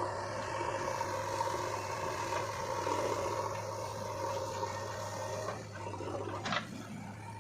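Heavy diesel machinery engine running steadily, with a single sharp knock about six and a half seconds in.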